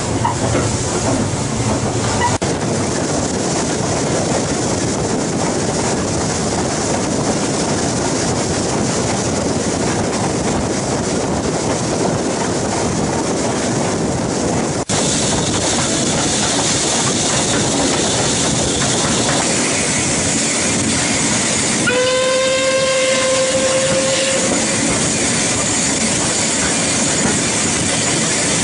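Steam-hauled train running, heard from aboard a carriage as a steady rush of wheel and track noise. About two-thirds of the way through, a locomotive's steam whistle sounds one steady note for about two and a half seconds.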